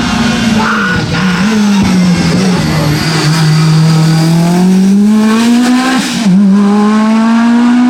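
Lancia Delta S4 Group B rally car's turbocharged and supercharged four-cylinder engine running hard. The revs sag over the first few seconds, then pull up steadily, drop sharply for an upshift about six seconds in, and climb again.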